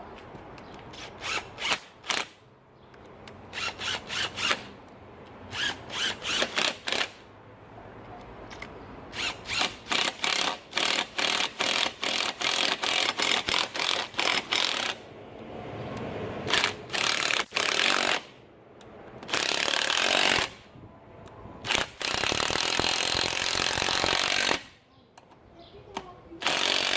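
A power tool run in many short bursts, several a second, then in two longer steady runs of a couple of seconds near the end.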